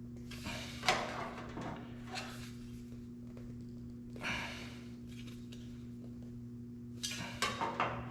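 Sheet-steel patch panel being handled and bent by hand: scraping and sliding of the metal, a sharp knock about a second in, and a quick run of four or five knocks near the end.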